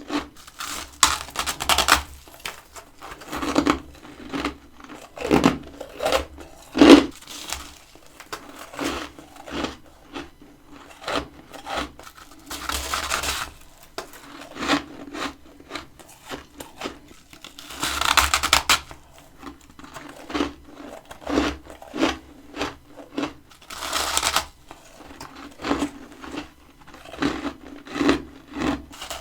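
Close-miked biting and chewing of freezer frost: a steady run of separate crisp crunches, with a few longer crunching stretches.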